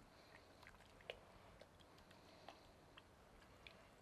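Near silence: a spoon stirring thick bean chili in a stainless steel pressure-cooker pot, with a few faint soft clicks.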